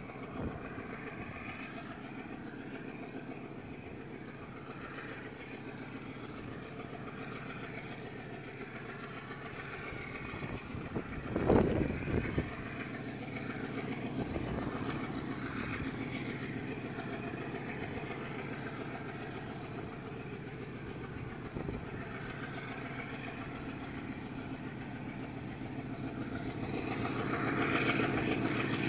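A GE C36-7i diesel-electric locomotive's V16 diesel engine drones steadily as it approaches from far down the line, growing louder near the end. There is a brief loud thump about eleven seconds in.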